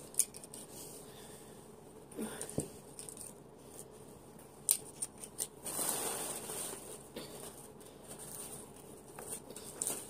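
Paper and plastic rustling as cage parts and the instruction sheet are handled, with scattered light clicks and taps and a longer rustle about six seconds in.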